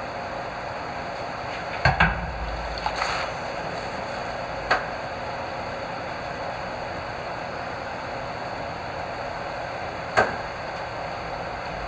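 A steady rushing noise, broken by a few sharp knocks: two close together about two seconds in, another just before five seconds, and a last one near ten seconds.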